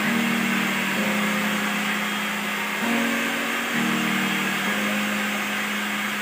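Handheld hair dryer blowing steadily, a continuous rushing hiss of air. Under it are low humming tones that shift in pitch every second or so.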